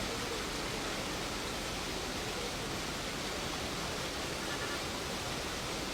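Steady, even rushing noise of water.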